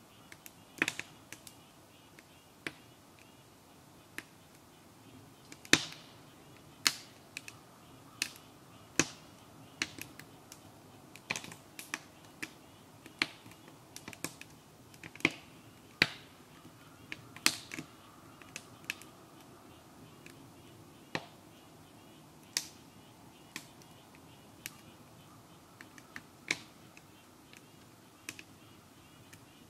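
Wood fire crackling in the firebox of a maple-sap evaporator: irregular sharp pops and snaps, one or two a second, some much louder than others, over a low steady hiss.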